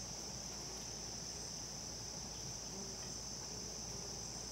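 A steady, high-pitched insect chorus trilling without a break.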